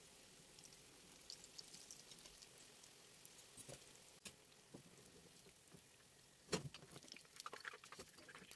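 Faint steady sizzle of twisted dough pastries frying in hot oil, with small crackles. A sharp clink comes about four seconds in, and a run of clicks and rattles from about six and a half seconds on as the crisp pastries are lifted out with a slotted spoon into a wire draining basket.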